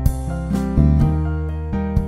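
Instrumental background music: held notes over a strong bass, with sharp note attacks and the notes changing every half second or so.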